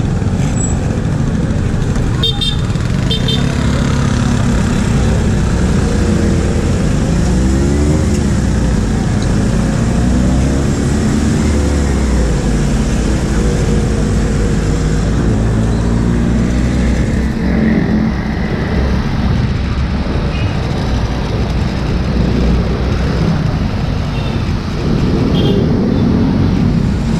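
Motorcycle engine running through city traffic, its pitch rising and falling as it speeds up and slows, over a steady road and wind rumble. A few short vehicle horn toots come about two seconds in and again near the end.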